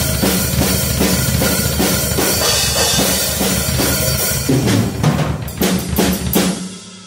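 Mapex Horizon acoustic drum kit played with a fast, continuous double-bass-pedal kick drum pattern under cymbals and snare. It ends with a few separate hits about six seconds in and then stops.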